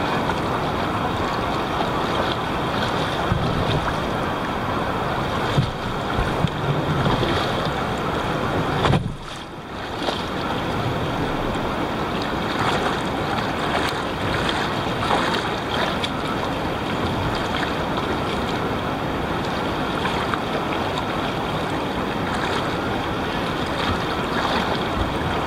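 Steady rush of shallow river water with the splashing steps of a person wading and towing a kayak through it. A few sharper splashes or knocks come around six seconds in, and the sound drops briefly about nine seconds in.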